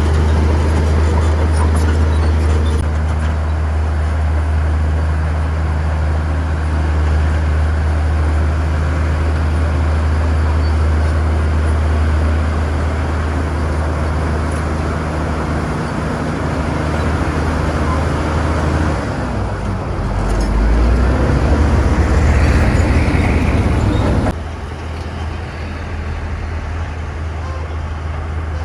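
Bulldozer's diesel engine running steadily under load. About two-thirds of the way through it revs up and grows louder for a few seconds, then the sound drops suddenly to a quieter steady run.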